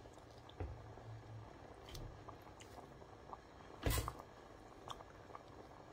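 A silicone spatula stirring and poking through thick lentil stew in a stainless steel pot, with wet squishing and small clicks against the pot, and one sharper knock a little before two-thirds of the way through. A faint low hum runs underneath.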